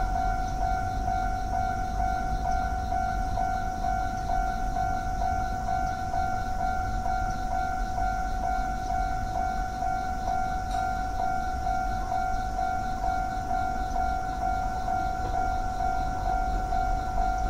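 Japanese railroad crossing warning bell ringing: an electronic bell tone pulsing steadily about twice a second, with a low rumble underneath.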